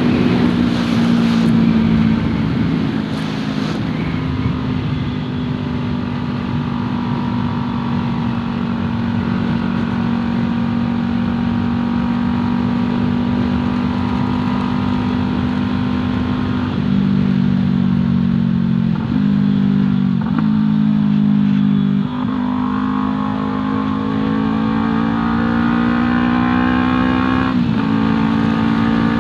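Yamaha R3's parallel-twin engine running through an aftermarket Arashi exhaust while riding, heard on board. The note holds steady at moderate revs, then shifts up and down several times in the second half, with a slow climb in revs cut by a sudden drop near the end, as with a gear change.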